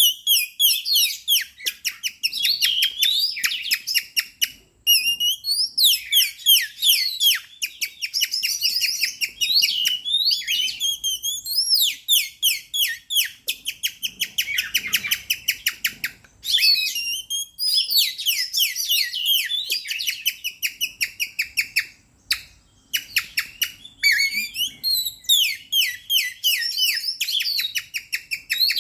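Oriental magpie-robin singing nonstop in full song: rapid trills and sweet whistled phrases, broken only by a few short pauses.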